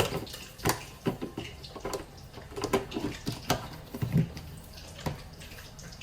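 Irregular kitchen handling sounds: about a dozen short knocks and clinks with wet dripping sounds, fading out near the end.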